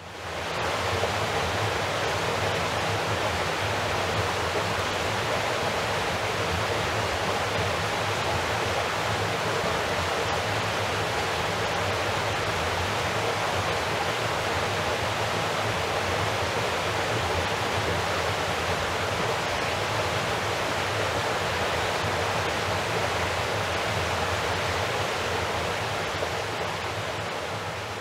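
River water rushing over rocks: a steady, even rush of flowing water that fades in at the start and eases off slightly near the end.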